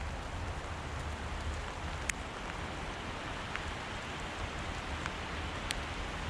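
Steady rain falling, an even hiss with a few sharp single drop taps.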